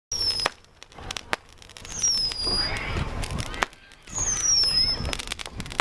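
Fireworks being set off: scattered sharp pops and cracks, with a high whistle falling in pitch three times, about two seconds apart.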